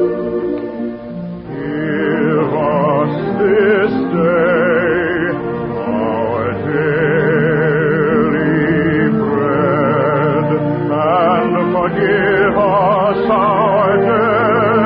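Orchestral music from an old 1950s radio broadcast, thin and narrow in sound. About two seconds in, a singer with a strong operatic vibrato comes in over the orchestra and sings a melody.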